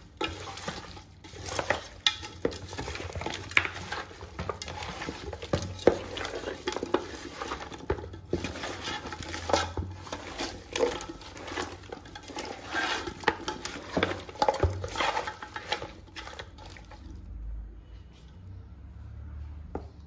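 Mutton head pieces being mixed with spice paste, oil and a little water in a large pot: many irregular clinks and knocks against the pot over wet stirring noise, dying down about seventeen seconds in.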